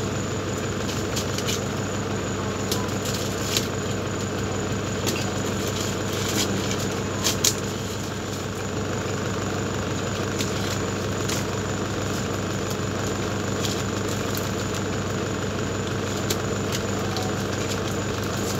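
A car engine idling steadily, heard from inside the cabin, with a scattering of short snips and crinkles as scissors cut through plastic packaging.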